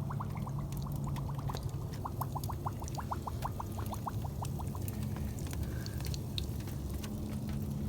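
Nerds candy fizzing in a bottle of liquid after a big reaction. A fast run of gurgling bubble pops for the first four or five seconds, then fainter crackling fizz.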